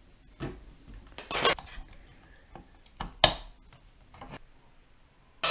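Metal beaters clicking and clattering against an electric hand mixer as they are fitted into it: a few separate knocks, the sharpest about three seconds in. The mixer switches on and starts running right at the end.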